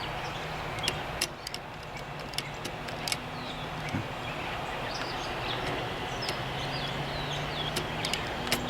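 Sparse, sharp little metal clicks and taps from small parts being handled on a Corona 3 folding typewriter, over a steady background rumble with faint bird chirps now and then.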